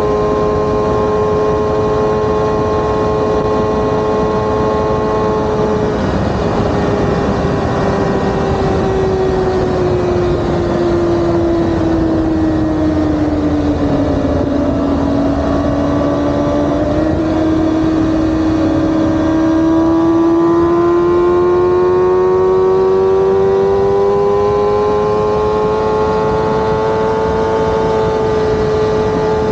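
Sportbike engine at highway speed, heard from the rider's seat over wind and road noise. Its pitch holds steady for the first few seconds, sags smoothly to a low point around halfway, then climbs steadily back up toward the end.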